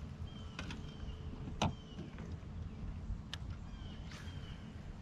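Small sharp clicks and knocks of gear being handled in a kayak, four or five of them, the loudest about a second and a half in, over a steady low rumble. Short high chirps come and go.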